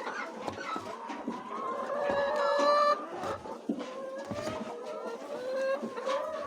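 A flock of laying hens clucking and calling over one another, with one bird's louder, drawn-out call about two seconds in.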